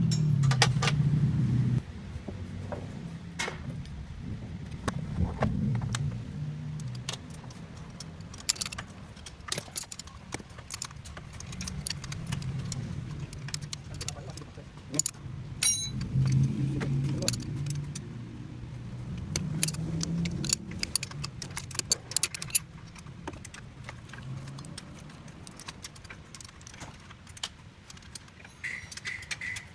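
Metal tools and parts clinking and clattering during hands-on car repair work, scattered sharp clicks over a low background rumble.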